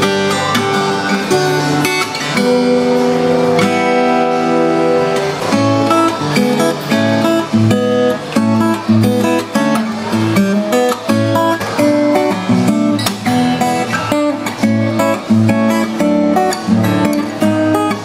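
Steel-string acoustic guitar, a Japanese K. Yairi cutaway, played solo with bare fingers: a chord held about two seconds in, then a run of quicker melody notes over chords.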